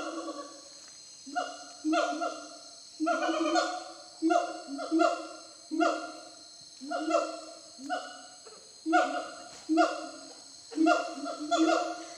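Gibbon song: a long run of repeated hooting calls, each short note starting sharply and dipping slightly in pitch, coming about once or twice a second with short pauses between groups.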